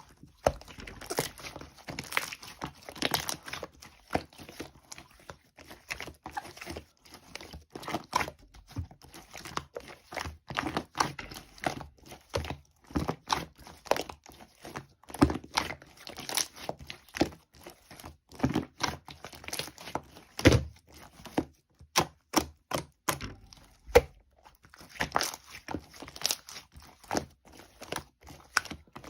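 A continuous run of close crinkling, crackling and light knocking handling noises, irregular and without speech.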